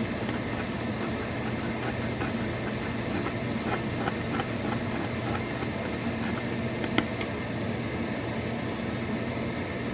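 Steady electrical hum of a running kitchen appliance, with light scattered ticking and one sharp click about seven seconds in.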